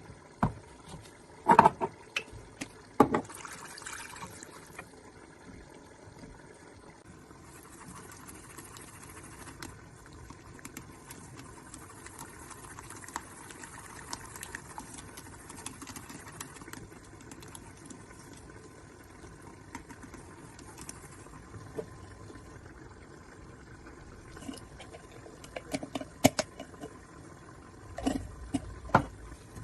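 Kitchen utensils knocking and clinking against cookware, a few sharp hits in the first few seconds and again near the end, over a faint steady hiss.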